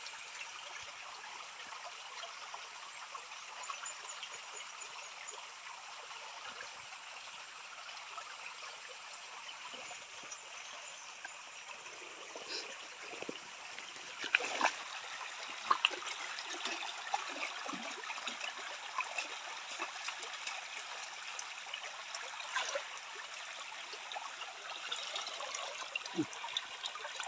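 A small stream running and trickling steadily. From about halfway through come scattered short knocks and clicks, such as footsteps on wet stones.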